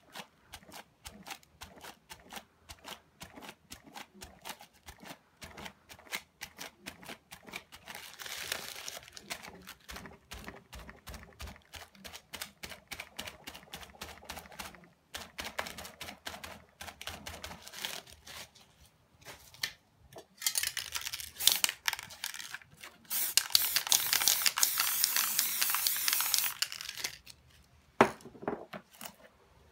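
Crumpled plastic pressed and dabbed rapidly against wet spray paint on a board, a quick crinkling patter. About twenty seconds in, an aerosol spray paint can hisses in a few short bursts, then sprays steadily for about four seconds.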